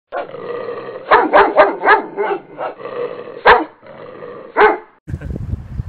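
Repeated short barks, about eight in all, over a steady hum; the sound cuts off sharply about five seconds in.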